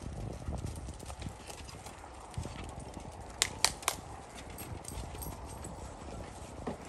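Dogs' paws scampering and scuffing through loose wood-chip ground cover, an irregular patter of small clicks and rustles. About halfway through, three sharp clicks come in quick succession.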